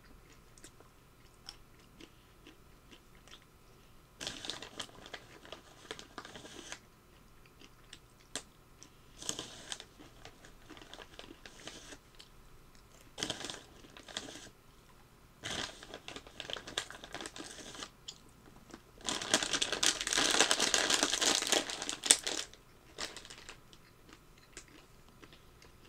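A person chewing walnuts, with scattered crunching bites. About three-quarters of the way through, a plastic bag crinkles loudly for about three seconds.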